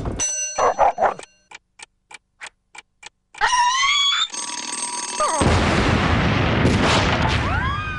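Cartoon sound effects: a bell-like tone, then a run of sharp ticks at about three a second, like a bomb's timer. About five and a half seconds in, a loud explosion of dynamite follows and carries on to the end.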